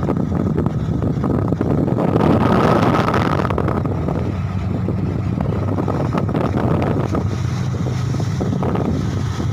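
Ferry's diesel engines running with a steady low hum as the ship manoeuvres to dock, with wind buffeting the microphone. About two seconds in, a louder rushing surge swells for a second or so, then eases back.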